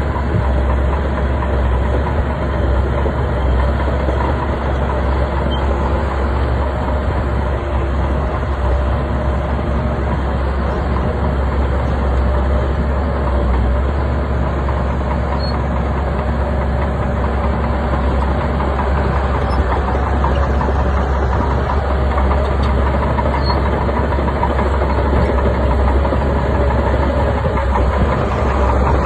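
Bulldozer's heavy diesel engine running steadily under load, with dense rattling clatter over a strong low rumble.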